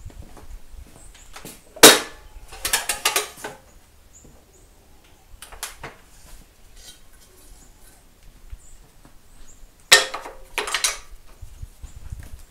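Metal clunks and rattles of a DeWalt sliding compound miter saw's bevel mechanism as the saw head is unlocked and tilted over to the opposite bevel angle. There is a sharp clunk about two seconds in with a rattle after it, a faint click near six seconds, and another clunk and rattle near ten seconds.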